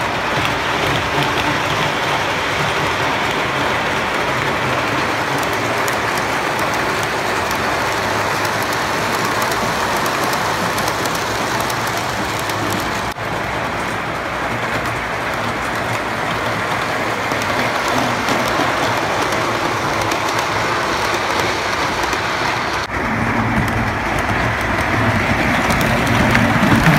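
O scale model diesel locomotives and cars running on three-rail track: a steady rolling rumble of wheels and motors that grows a little louder near the end as the train comes close.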